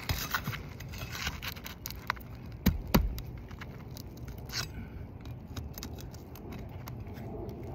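Steel flat pry bar scraping and clicking under asphalt roof shingles as roofing nails are pried loose, with two sharp knocks close together about three seconds in.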